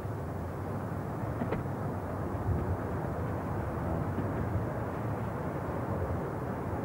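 Steady rumble of city traffic, with no single vehicle standing out.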